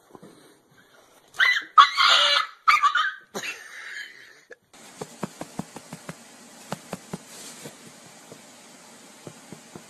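A small dog barking in several loud, rapid bursts as it jumps at a cat. Partway through, the sound switches suddenly to a steady hiss with faint scattered ticks.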